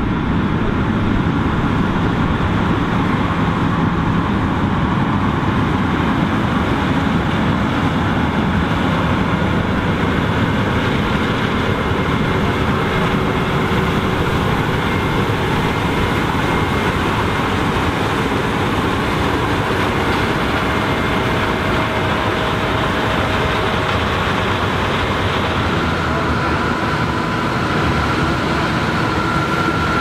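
John Deere combine harvesting corn: engine and threshing machinery running steadily as the corn header takes in the standing stalks. A faint steady whine comes in near the end.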